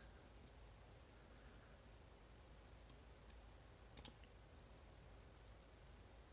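Faint clicks of a disc-detainer pick working the discs of a Bell Catalyst Mini bicycle U-lock, as each disc is checked for sitting at its gate. A few scattered ticks, with one sharper click about four seconds in.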